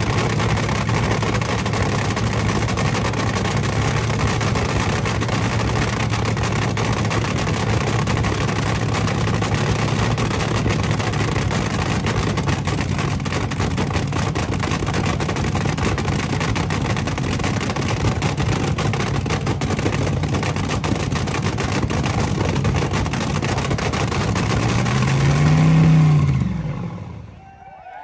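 Supercharged V8 of a front-engine dragster idling hard through open zoomie headers, all cylinders firing. Near the end it revs up once, then is shut off and dies away.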